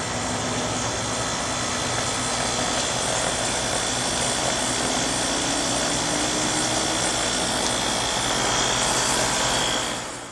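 Rheem 3-ton package heat pump running: steady whir and hum of the scroll compressor and condenser fan, fading out near the end.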